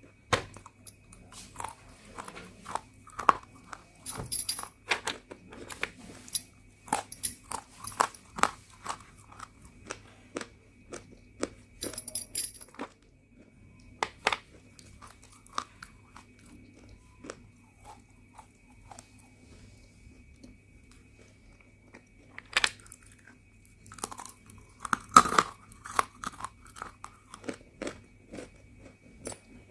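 Pieces of roasted multani mitti (Fuller's earth clay) being bitten and chewed close to the microphone: dry, irregular crunches, with a quieter spell past the middle and the loudest crunch near the end.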